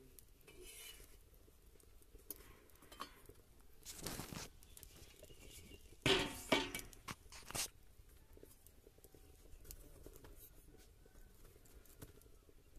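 Wood fire crackling faintly in a clay stove, with a few short scraping and rustling noises as tongs move a roti from the iron griddle onto the embers, the loudest about six seconds in.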